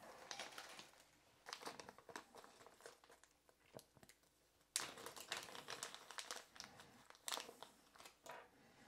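Faint crinkling and rustling of small plastic bags being handled, in scattered bursts with short pauses.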